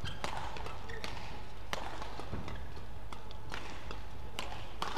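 Badminton racquets striking the shuttlecock in a fast doubles rally: sharp cracks at irregular intervals, about half a second to a second apart, over a steady low hum.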